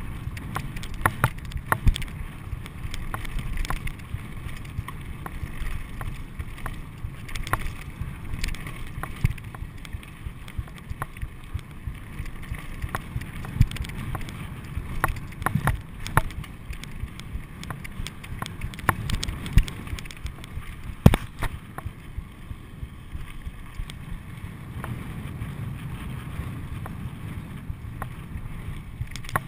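Mountain bike riding over a rocky dirt trail: a steady rumble of tyres on gravel with wind on the microphone, and frequent sharp rattles and knocks as the bike goes over bumps and stones.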